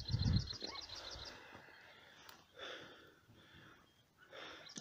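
Quiet open-air ambience: a low muffled bump at the start, a rapid run of high-pitched ticks, about eight a second, at the start and again near the end, and faint distant calls in between.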